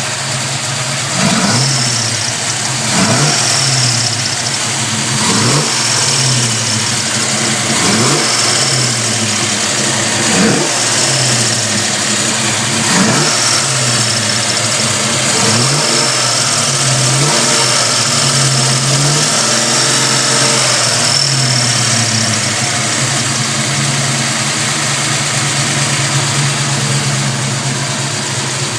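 Chevrolet 327 small-block V8 running, the throttle blipped about every two to three seconds through the first half, then held steadier. An intermittent chirping comes from the rear of the passenger-side valve train, its cause not yet known.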